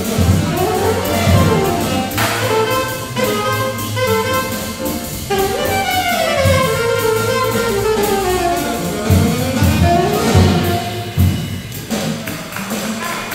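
Live modern jazz: an alto saxophone plays a flowing line that sweeps up and down in pitch, over piano, walking double bass and drums with a steady cymbal beat.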